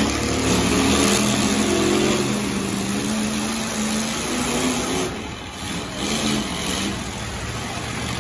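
Demolition-derby pickup trucks' engines revving hard as they push against each other, the revs easing off about five seconds in.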